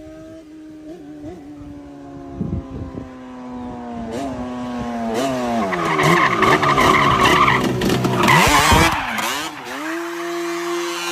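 Yamaha Banshee 350's twin-cylinder two-stroke engine running. Its pitch sags slowly, then it revs harder and grows much louder with quick throttle blips, before dropping back to a steady idle near the end.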